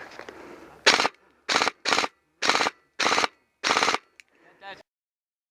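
Automatic gun fired on full auto in six short bursts, each a rapid string of cracks, about half a second apart.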